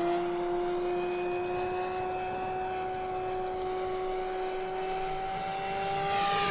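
Electric motor and propeller of an E-flite Commander mPd RC airplane flying under power on a 4S battery: a steady whine that rises slowly in pitch.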